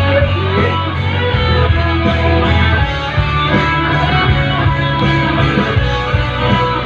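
Pop-rock band music between sung lines: guitars play over a steady bass line.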